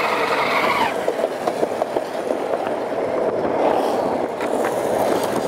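Longboard wheels rolling fast over asphalt: a steady rumble, with a run of sharp clacks from cracks and seams in the pavement between about one and two seconds in.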